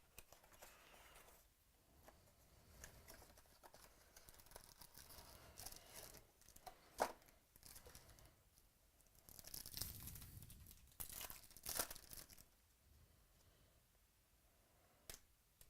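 Faint tearing and crinkling of trading-card pack wrappers as cards are handled, with a few sharp clicks. The busiest rustling comes about two-thirds of the way through.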